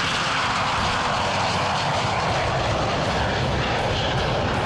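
Sea Harrier jump jet's Rolls-Royce Pegasus engine at full throttle, a steady, loud jet roar on the takeoff run and climb-out.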